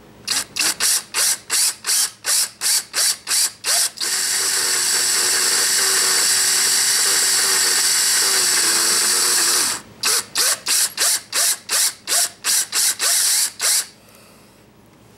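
Cordless drill drilling a hole through a metal washer: the trigger is pulsed in short bursts, about three a second, then held for a steady run of about six seconds, then pulsed again before it stops near the end.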